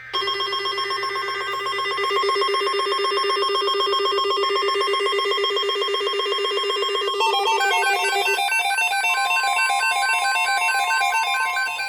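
Electronic alert tones on NOAA Weather Radio as a new warning broadcast begins. A harsh, steady, ringing buzz lasts about seven seconds, then gives way to fast warbling, stepped beeps. From about nine seconds a steady high tone sounds, the radio's 1050 Hz warning alarm tone.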